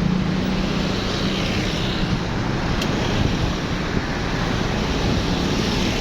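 Road traffic noise in a jam: vehicle engines running under a steady rush of road noise, with a low engine hum that fades out over the first second or two.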